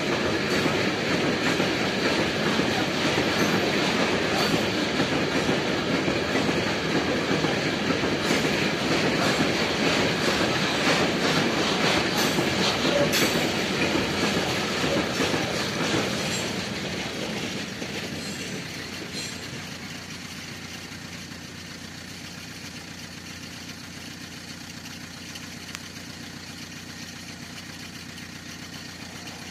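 Freight train of container wagons rolling past at speed, a loud steady rumble of wheels on rail with scattered clicks. The sound fades away over a few seconds about two-thirds of the way through, leaving a quieter steady background.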